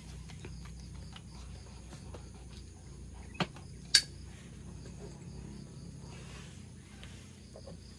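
Steady high chirring of insects, with two sharp clicks about half a second apart near the middle; the second click is louder.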